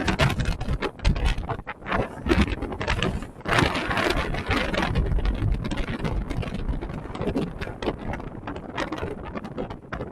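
Wind buffeting the microphone in uneven gusts over the low rumble of a vehicle moving along a road.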